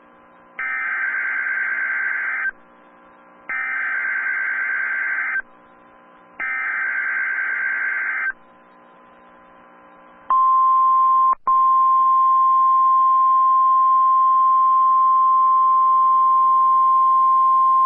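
NOAA Weather Radio alert opening: three bursts of SAME digital header data, each about two seconds long with about a second between them, then the steady 1050 Hz warning alarm tone, which cuts out for an instant about a second after it starts. The header encodes the new alert and the tone switches on weather-alert receivers for the message that follows.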